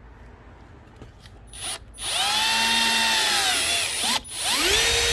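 Power drill boring a 3/8-inch hole straight through a centre-punched mark. It starts about two seconds in with a whine that sags under load as the bit cuts, stops briefly, then spins up again with a rising pitch to a steady free-running speed near the end.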